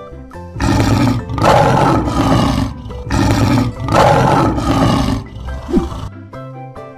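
Lion roaring twice, two long roars of about two seconds each, laid over background music.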